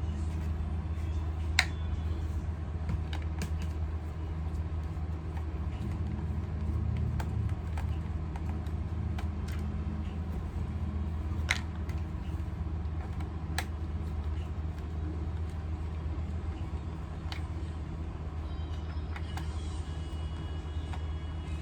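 A steady low rumble with a handful of short, sharp clicks scattered through it.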